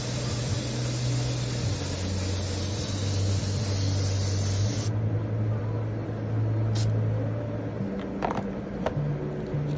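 Steady low mechanical hum under a hiss; the hum's pitch shifts a little now and then. A few light clicks come in the last few seconds.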